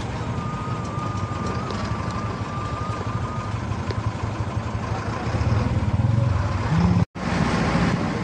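A truck's engine running and its body rumbling as it drives along a rough dirt road, heard from the cab. The sound swells a little near the end and cuts out for a split second about seven seconds in.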